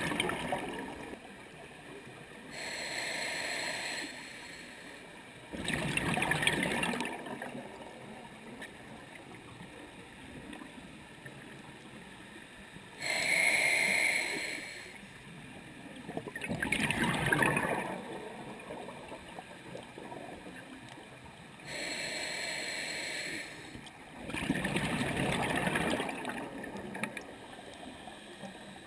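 Scuba diver breathing through a regulator underwater: even hissing inhales through the demand valve alternate with rough bubbling exhales, each lasting a second or two. There are about four exhales and three inhales, with a long pause between breaths near the middle.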